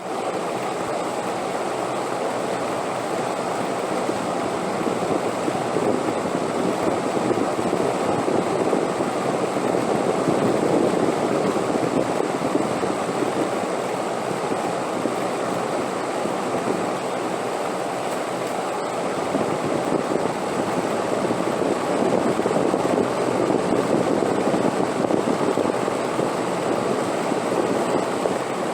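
Wind blowing steadily, swelling and easing in slow gusts, with louder stretches about a third of the way in and again toward the end.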